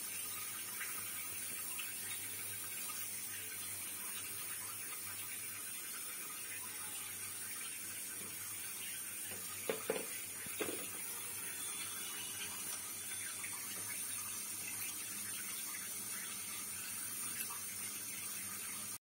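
Steady faint hiss with a low hum underneath, and a couple of light knocks about ten seconds in.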